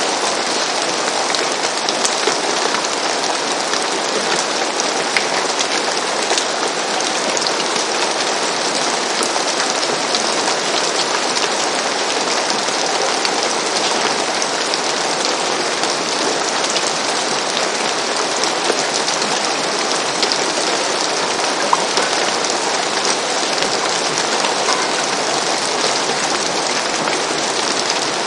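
Steady rain falling on a roof, an even hiss with many fine scattered drop ticks.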